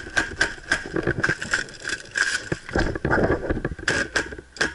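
A string of sharp, irregular clicks and knocks, a few per second, over a rattling background: the shots and gear noise of an airsoft game in play.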